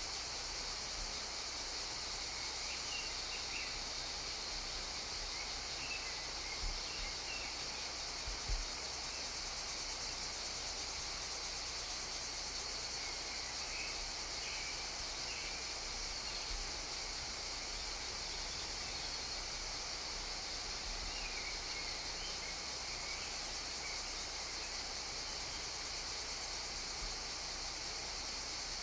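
Steady high-pitched insect trilling, like crickets, with faint short chirps now and then and a couple of soft knocks about a quarter of the way in.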